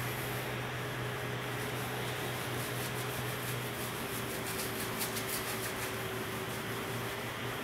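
A steady low hum fills the small tiled room. Over it, faint wet rubbing and squishing come from hands working soap into a Siberian Husky's wet head and neck fur, a little more audible in the middle.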